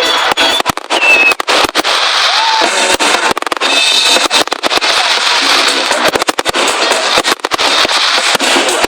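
Fireworks going off in a dense, rapid barrage of bangs and crackling, with a few short whistling tones.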